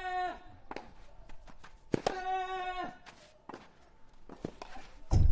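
Tennis ball struck hard with a racket, each stroke followed by the hitter's long, high, sustained grunt: the tail of one grunt and then a full one about two seconds in. Fainter ball hits from the far end of a clay court fall between the grunts, and a loud low thud comes near the end.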